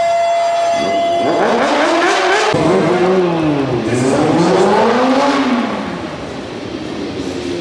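Sportbike engine revving hard in repeated sweeps, pitch climbing, dropping and climbing again, as the bike is ridden up on one wheel in a stunt; the sound changes abruptly about two and a half seconds in, and the revving eases off for the last couple of seconds.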